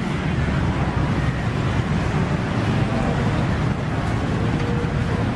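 Steady low rumble of outdoor street-market background noise, with faint voices in it.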